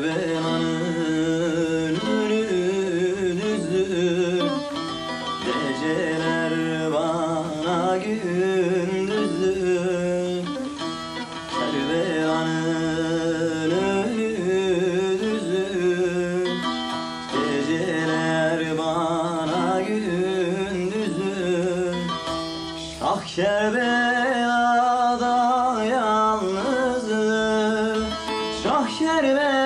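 Bağlama (long-necked Turkish saz) played with a voice singing a wavering, ornamented melody over it, in the manner of a cem deyiş or semah.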